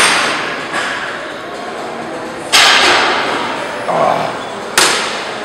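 Three sharp, hissing exhalations, one about every two and a half seconds, each fading over about a second, as a man breathes out hard with each rep of a cable curl.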